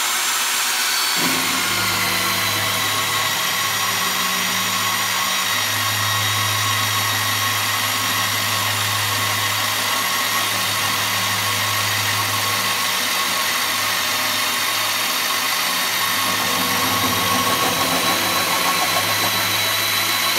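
Modular tubing notcher's motor-driven cylindrical cutter running steadily as it feeds into a lubricated tube and copes the end: a steady whine over a low hum that swells and dips.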